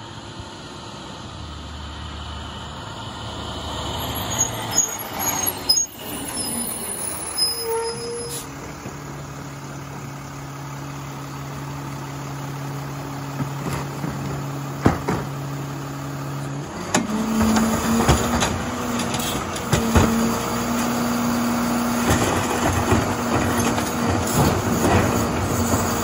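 International garbage truck with a Labrie Expert side-loader body pulls up and idles with its diesel engine. About halfway through, the engine settles at a higher steady speed as the hydraulic cart tipper works, and metal clanks come from the cart and the lifter.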